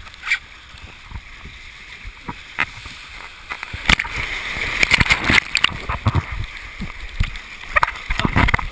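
Water rushing and splashing down an open waterslide flume under inflatable tubes, with many sharp knocks and bumps against the action camera. The spray gets louder and denser from about four seconds in.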